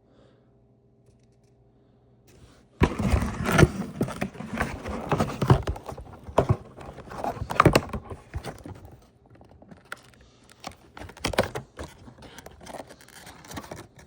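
Quiet for the first few seconds, then an irregular run of scrapes, clicks and knocks as a toy's box and packaging are handled and pulled open.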